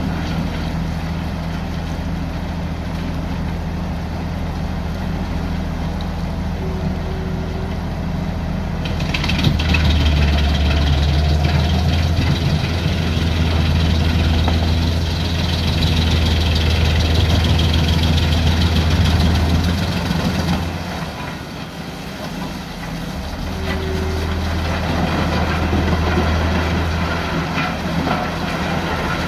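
Large Jenz HEM wood chipper running steadily, then louder from about ten seconds in as logs are fed through its chipping rotor, easing off for a couple of seconds a little after twenty seconds, then chipping again.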